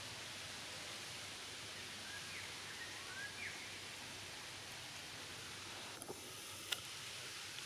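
Steady outdoor background hiss with a few faint, short rising chirps about two to three seconds in and a sharp click near the end.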